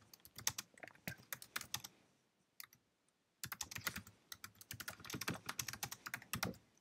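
Typing on a computer keyboard: a quick burst of keystrokes, a pause of about a second and a half with one stray key, then a longer, steady run of typing.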